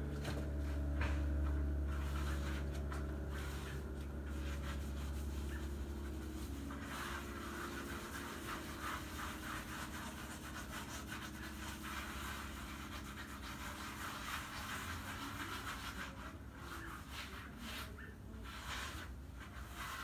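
Grout being rubbed and scrubbed by hand over a mosaic of broken tile, a steady scratchy rubbing. A low hum is loudest at the start and fades away over the first several seconds.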